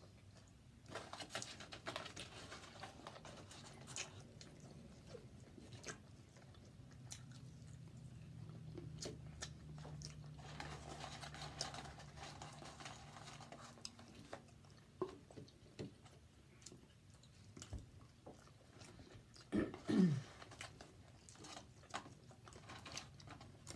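Close-up chewing and biting of fast food, with many small wet clicks and crunches from the mouth. A short hummed voice sound comes about twenty seconds in.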